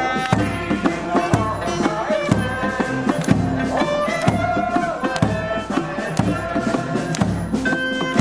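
Okinawan eisa folk music played live: a large barrel drum (ōdaiko) struck about once a second, under a melody on sanshin, clarinet and acoustic guitar.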